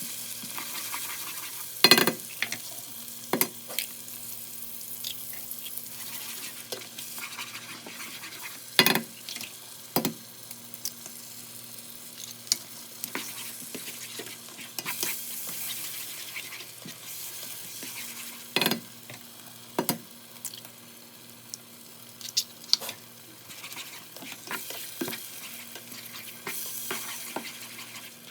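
Onions, garlic and jalapeno sizzling in hot oil in a pan while raw eggs are added and stirred in, with a steady frying hiss and sharp knocks now and then, the loudest about 2, 9 and 19 seconds in.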